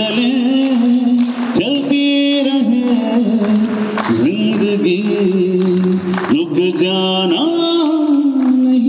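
A man singing with musical accompaniment between lines of a Hindi film song, on long held, wavering notes.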